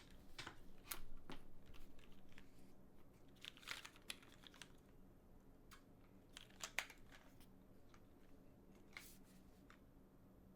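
Scattered, faint key presses on a GSK 910 keyboard with linear Cherry MX Black switches on a carbon-fibre plate: a dozen or so single clicks and short clusters at irregular intervals, over a faint steady hum.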